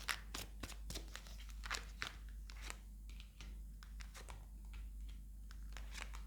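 A deck of tarot cards being shuffled by hand: a run of quick, soft card flicks and clicks, densest in the first couple of seconds.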